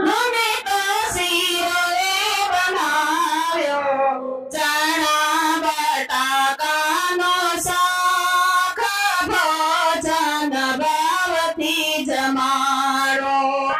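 Women singing a devotional song (bhajan) together, the melody wavering and ornamented, over a regular beat; the singing breaks off briefly about four and a half seconds in, then carries on.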